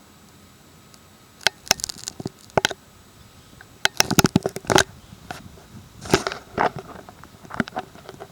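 A dog mouthing and chewing a rock: irregular sharp clicks and crunches of hard stone, starting about a second and a half in.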